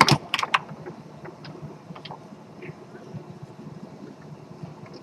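Tornado foosball table in play: a quick run of four or five loud, sharp clacks at the start, then scattered lighter taps as the ball is struck and moved by the plastic men and the rods knock.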